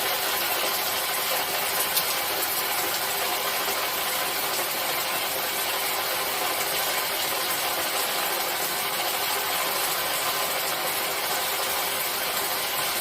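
Steady rain falling, an even hiss with no change, with a single faint click about two seconds in.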